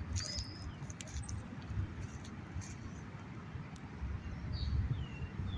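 A few short, high bird chirps that fall in pitch, one at the start and several close together near the end, over a steady low rumble of outdoor background noise.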